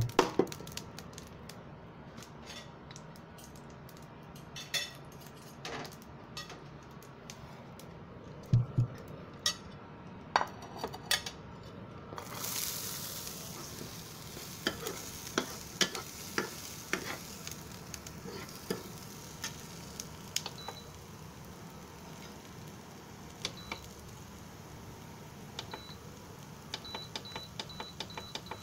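Chopped onions hit hot oil in a nonstick frying pan about twelve seconds in and start sizzling, with a metal spoon clinking and scraping against the pan as they are stirred. Before that there are scattered knocks and clinks of pan and utensil. Near the end comes a run of short electronic beeps from the induction cooktop's buttons.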